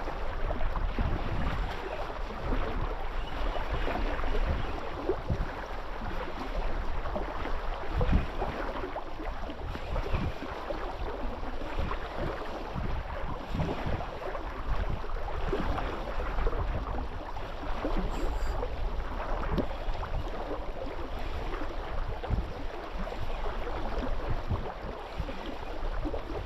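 Wind buffeting the microphone in irregular low gusts over a steady rush of water.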